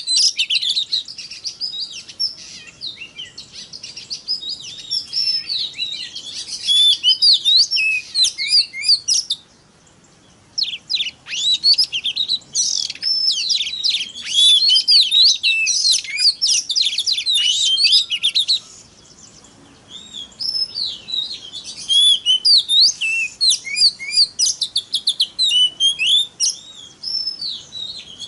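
Oriental magpie-robin (kacer) singing a fast, varied, high song of rapid sweeping whistles and trills. It comes in long bursts, broken by two short pauses at about ten and nineteen seconds in. This is the kacer's fiery song that keepers play to rouse other kacer into singing.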